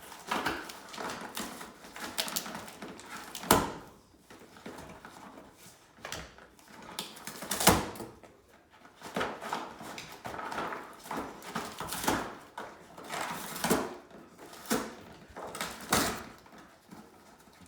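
A dog working at a cardboard food puzzle box, pawing, nosing and tearing at the boxes: irregular rustling and scraping with several sharp knocks.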